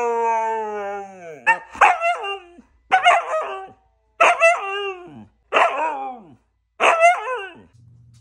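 Siberian huskies howling and 'talking': a long held howl falls away about a second in, then five short yowling calls follow about a second apart, each dropping in pitch at its end.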